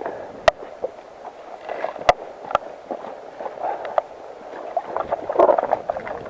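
Shallow mountain river gurgling over stones as people wade in, with a few sharp clacks of river cobbles knocking underfoot, the loudest about half a second and two seconds in.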